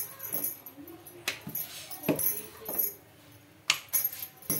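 Bangles jingling on a wrist as a wooden rolling pin rolls chapati dough on a stone counter, with several sharp knocks, the strongest near the end.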